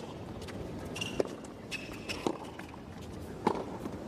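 Tennis rally on a hard court: sharp racket-on-ball strikes about once a second, with short high sneaker squeaks on the court surface between them.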